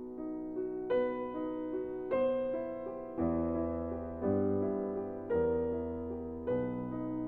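Background music: soft piano chords struck about once a second, with sustained low notes in the middle.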